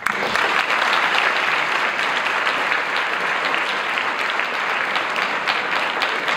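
Large audience applauding, the clapping breaking out suddenly and holding steady as a dense patter of many hands.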